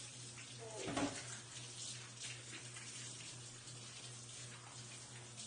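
Water running from a kitchen faucet with a splashy patter as hands are rinsed under it, over a steady low hum. A brief voice sound comes about a second in.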